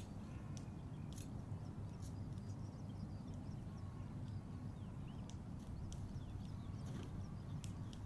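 Outdoor ambience: a steady low rumble with faint, scattered short bird calls and a few sharp clicks over it.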